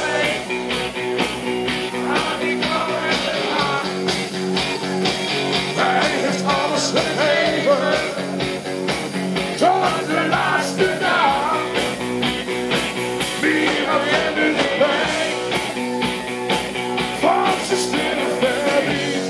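Live rock band playing loudly: electric guitars, bass guitar and drums with a steady beat, and voices singing now and then over the top.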